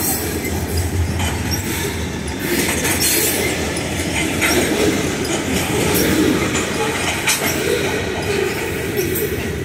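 Covered grain hopper cars of a freight train rolling steadily past: a continuous rumble of steel wheels on the rails, broken by scattered clacks as the wheelsets cross rail joints.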